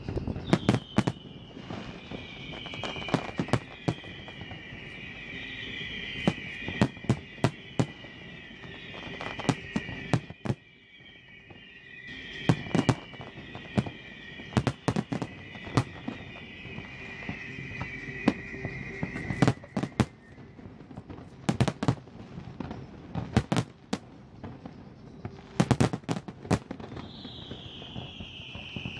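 Aerial fireworks display: a dense run of sharp bangs and crackling bursts, over overlapping falling whistles for most of the first twenty seconds. The barrage dips briefly about ten seconds in, then carries on, and a fresh whistle falls near the end.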